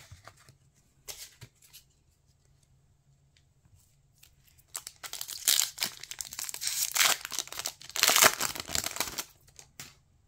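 Foil Pokémon booster pack wrapper being torn open by hand, crinkling loudly in two spells of ripping from about halfway through for some four seconds. A brief rustle of cards being handled comes about a second in.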